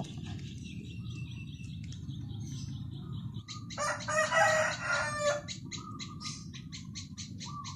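A rooster crows once, about four seconds in, a single crow lasting about a second and a half. High, evenly spaced chirps, about four a second, carry on behind it.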